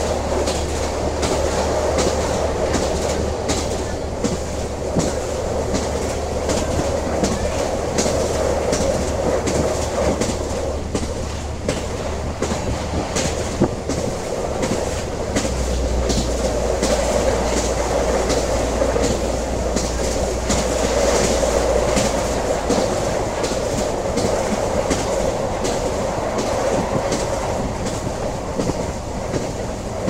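Train running along the track: a steady rolling rumble with a constant run of clicks and knocks from the wheels over the rails, and a low hum underneath that shifts about halfway through.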